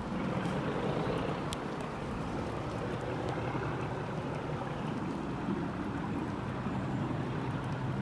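Class 37 diesel-electric locomotive's English Electric engine running under power, a steady low hum under a broad, even roar.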